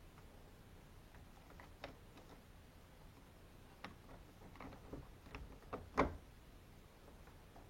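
Scattered light clicks and clinks of a new door knob's metal parts being slid into place through the door, with a cluster of clicks about two thirds of the way in and one louder knock just after.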